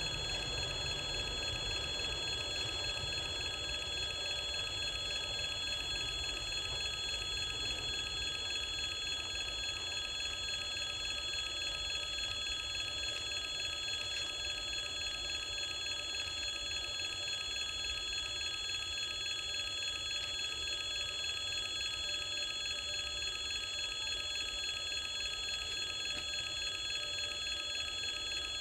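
Railway level crossing's electric warning bell ringing continuously and evenly, over a low rumble that eases off during the first dozen seconds.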